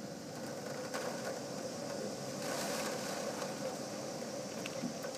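Steady mechanical hum with a constant drone and an even background hiss.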